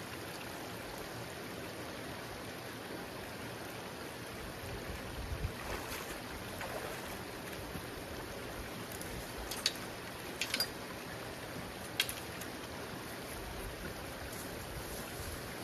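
Creek water running steadily, with a dull low thump about five seconds in and a few sharp clicks around ten to twelve seconds in.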